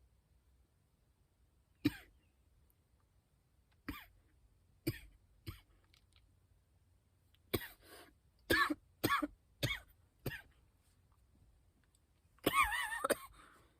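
A man coughing in a string of short, separate coughs, about nine of them, ending near the end in one longer, hoarse cough.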